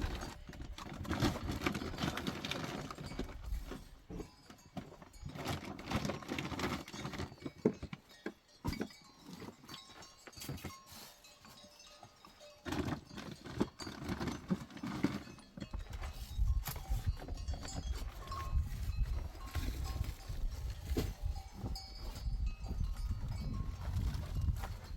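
Livestock with bells ringing, and a low rumble that sets in about two-thirds of the way through.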